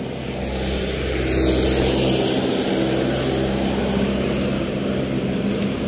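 Motor vehicle engine running steadily nearby, a low even hum over road noise that swells a little after the first second.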